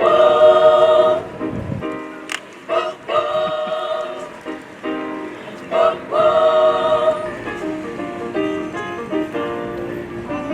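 Choir singing: several voices hold chords in short phrases of about a second, moving to shorter notes in the second half.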